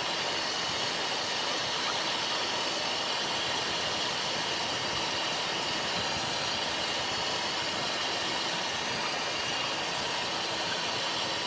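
Steady cockpit noise of a Cessna Citation XLS on short final: an even rush of airflow and turbofan engine noise, with a faint steady high whine.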